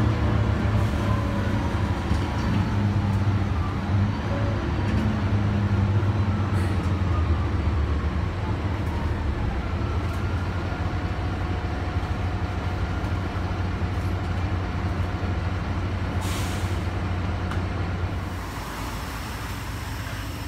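Mercedes-Benz Citaro city bus heard from inside the passenger cabin while it drives, its loud engine and Voith automatic gearbox giving a steady low drone that eases back about eight seconds in. About sixteen seconds in comes a short hiss of released air from the bus's air system.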